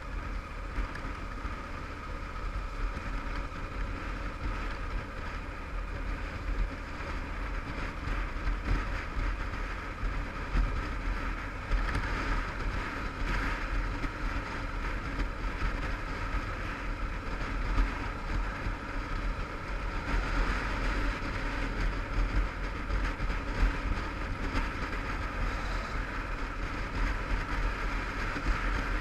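Yamaha TDM850 parallel-twin motorcycle engine running steadily at road speed while being ridden, with road and wind noise.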